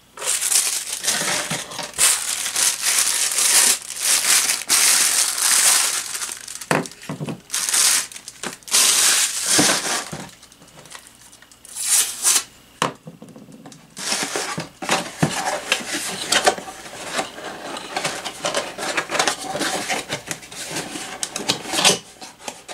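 Thin protective plastic film being peeled off a cordless phone's base and handset and crinkled in the hand, in irregular stretches of crackly rustling with short pauses between.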